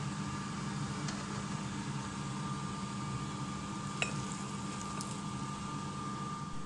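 Steady machine hum with a thin high whine running throughout. About four seconds in, a single sharp clink as the rim of a pot knocks against a ceramic bowl while noodles and soup are poured in, then a lighter click a second later.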